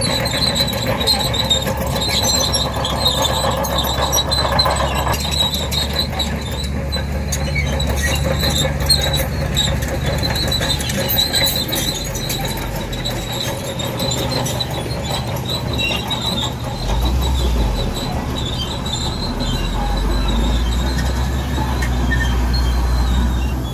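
Crawler bulldozer working: its diesel engine runs under load beneath a steady high-pitched squeal from the steel tracks. The engine note swells for a few seconds near the end.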